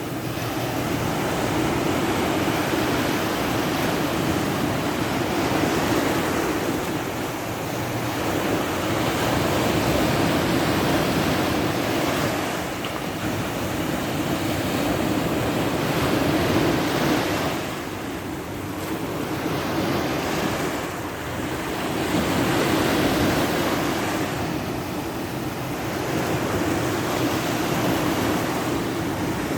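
Sea waves breaking and washing on the shore, the surf swelling and ebbing every few seconds, with some wind on the microphone.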